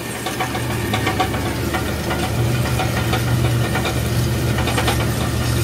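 Steady engine drone with scattered rattling, from a John Deere tractor pulling a Great Plains planter, heard from a pickup driving alongside it; the low hum grows a little stronger about two seconds in.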